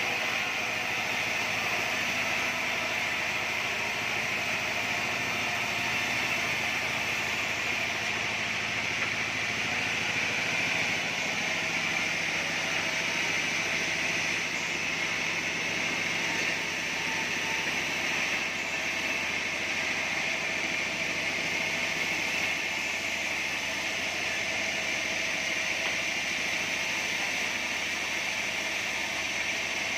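Band sawmill running steadily: a continuous hiss with a low hum underneath, with no breaks or sudden knocks.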